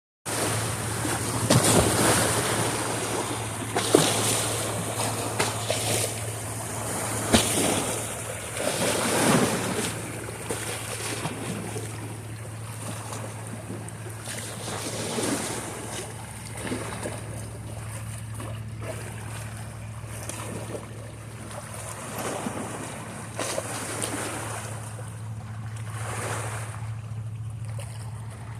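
Waves splashing and washing on salt water, with louder splashes in the first ten seconds or so and softer lapping after. Wind buffets the microphone, and a steady low hum runs underneath.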